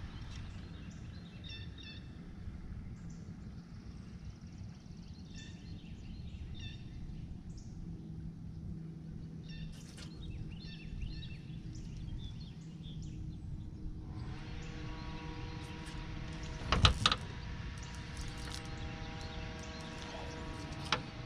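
Open-air quiet with a bird calling in short clusters of high chirps through the first half. About two-thirds of the way in a steady motor hum starts, and a few seconds later there is one sharp, loud knock.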